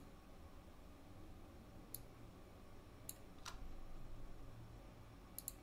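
Faint computer mouse clicks, a few scattered single clicks and then a quick pair near the end, as objects are selected in the design software.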